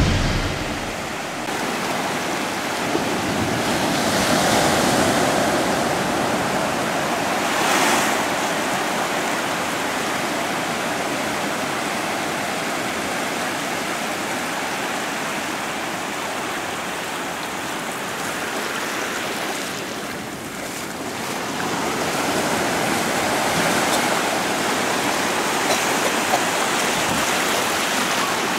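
Small waves washing onto a sandy shore: a steady rush of surf that swells and eases several times.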